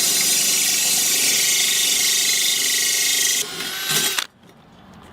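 Cordless drill spinning a diamond core bit, grinding through wet porcelain tile: a steady whine over a strong high hiss. The sound changes about three and a half seconds in, and the drill stops about four seconds in.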